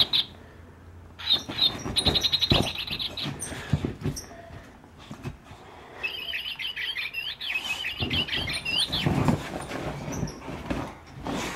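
Boxer dog chewing a squeaky plush bird toy: a fast run of high squeaks a little over a second in, then a stretch of high, chirping bird-like sounds in the middle, with low thumps of the dog moving about on the couch.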